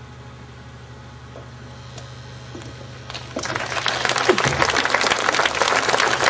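Theatre audience bursting into applause about three seconds in, at the close of the monologue, and clapping steadily on. Before it, only a low steady hum.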